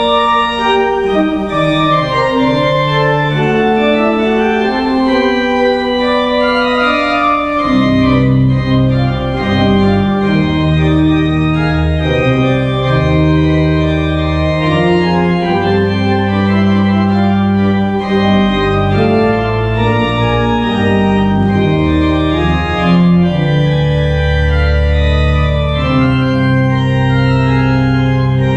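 Church organ playing slow, held chords; about eight seconds in, deep bass notes join and carry on under the chords.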